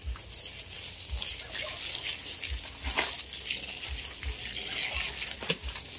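Water spraying from a garden hose onto soil and plants, a steady hiss, with a few soft knocks.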